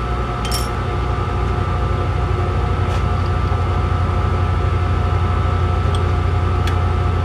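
A few light metal clinks as a drill bit is fitted and tightened into a lathe tailstock's drill chuck, over a steady machine hum with several fixed tones.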